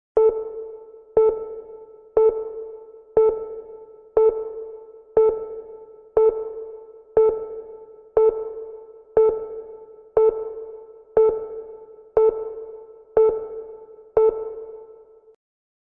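A short electronic chime-like tone struck once a second, fifteen times. Each strike is the same pitch and dies away before the next: a workout timer counting off the seconds of a timed hold.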